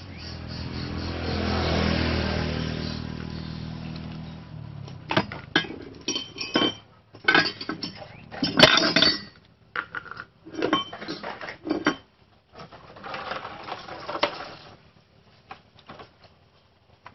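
Air from a hose rushing into a motorcycle inner tube through its valve, swelling then fading over about four seconds. It is followed by a run of sharp metallic clinks and clatters from tools being handled, and a brief rush of noise near the end.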